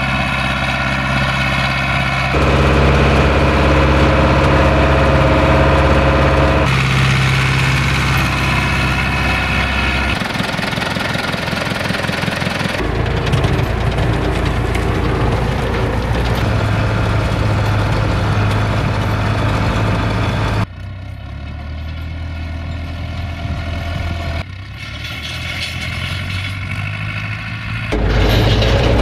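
International 844S tractor's diesel engine running while it pulls a harrow, heard as a string of short clips: the engine note and loudness change abruptly every few seconds at each cut.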